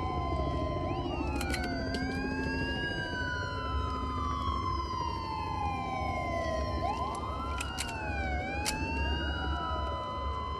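Several sirens wailing at once, their pitches rising and falling slowly and overlapping, over a low rumble. A few sharp clicks come about a second and a half in and again around eight seconds in.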